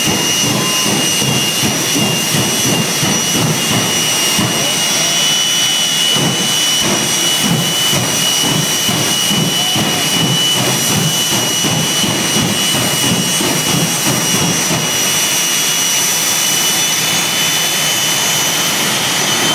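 Jet dragster engines running steadily at the start line: a loud, even roar with a high, steady whine.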